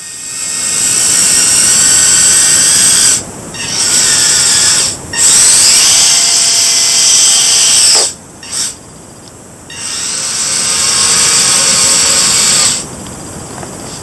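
Small electric gear motors of a 3D-printed 1/32-scale RC skid-steer wheel dozer whining at high pitch, starting and stopping in four runs with short breaks between them.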